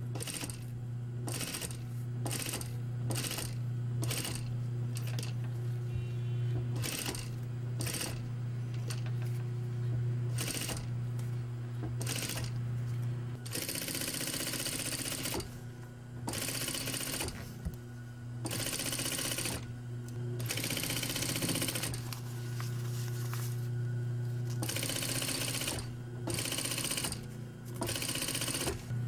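Industrial single-needle lockstitch sewing machine stitching fabric over a steady low hum. It sews in many short bursts at first, then in longer runs of a second or two.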